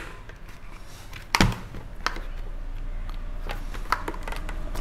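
Light plastic clicks and taps as a clear helmet visor is handled against the helmet shell and its side pivot mechanism, with one louder knock about a second and a half in and a few softer clicks after it.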